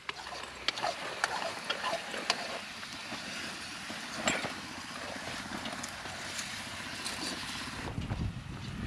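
Steady outdoor background noise with scattered light clicks and rustles, and a low rumble near the end.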